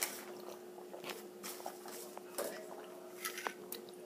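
A person sipping hot chocolate from a mug: soft slurps and swallows with small scattered mouth clicks.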